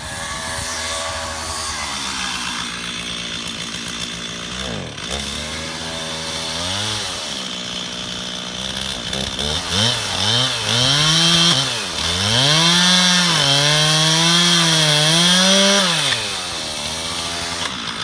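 Gasoline chainsaw idling, then revved up and down and run into the back cut of a white oak to thin the hinge wood that is still holding the tree up on its wedges. It runs hardest for several seconds near the end before dropping back.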